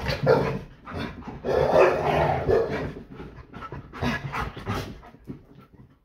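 Labrador retrievers panting close by in quick repeated breaths, with a louder drawn-out dog vocal sound about a second and a half in; it fades away near the end.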